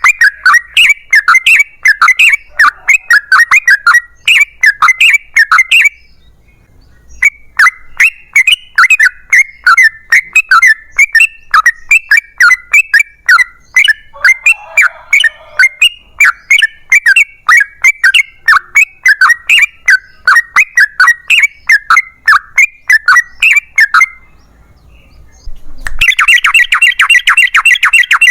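Yellow-vented bulbul (trucukan) singing a long rolling song: runs of rapid, quickly repeated chattering notes. It pauses briefly about six seconds in and again near the end, then gives a louder, denser burst of notes just before the end.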